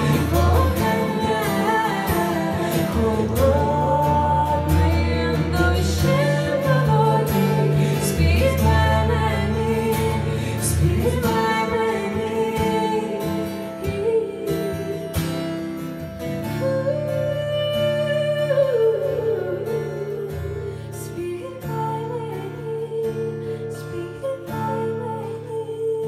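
A live acoustic guitar song with a man and a woman singing the melody over the guitar.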